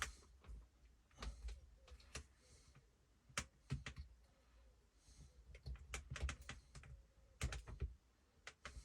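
Faint, irregular light clicks and taps of hands handling a drill and picking strap threads off it, with soft rustling between them.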